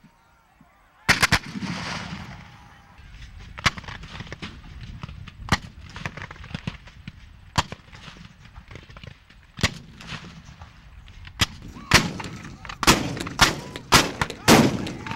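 Scattered rifle-musket fire with black-powder blanks in a Civil War reenactment battle. A quick burst of three shots comes about a second in, then single shots every second or two, then a denser run of shots near the end.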